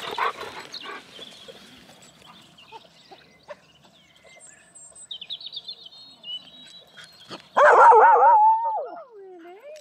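A dog vocalising: a thin high whine about halfway through, then a loud wavering howl-like call near the end that slides down in pitch as it fades.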